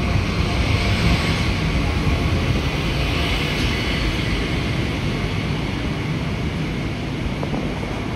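Mumbai suburban local train, an electric multiple unit, running: a steady rushing noise that eases off slightly toward the end.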